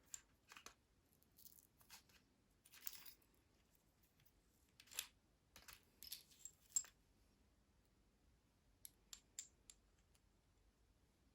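Faint, scattered small metallic clicks and clinks from a padlock's core and pin parts being handled, with a cluster about halfway through and another near the end.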